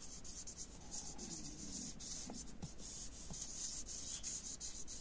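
Dry-erase marker writing on a glossy plastic sheet: faint rubbing strokes of the felt tip as letters are drawn, one short stroke after another.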